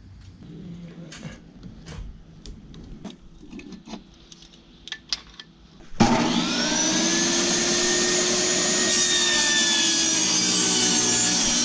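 Benchtop table saw switched on about six seconds in: its motor whines up to speed and then runs steadily and loudly. Before that there are only scattered light knocks and clicks.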